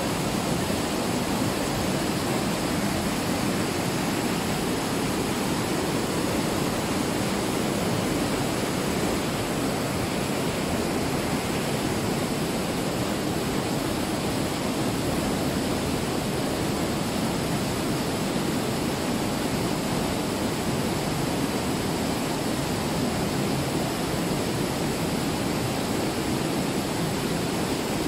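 Mountain stream cascading as white water through a narrow limestone gorge: a steady, unbroken rush of water.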